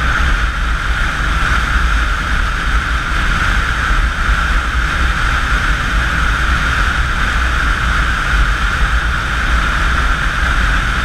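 Steady wind rush and motorcycle engine drone at highway cruising speed, picked up by a camera on the moving motorcycle, with a deep rumble underneath.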